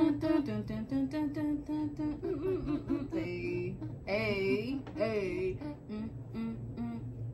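Women's voices singing and humming a wordless tune in short, quick syllables, with long wavering held notes about four and five seconds in.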